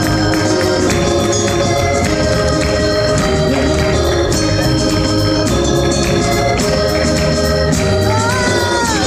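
Live band playing: held organ-like keyboard chords over drums and bass with a steady beat. Near the end a single pitched line rises and then slides down.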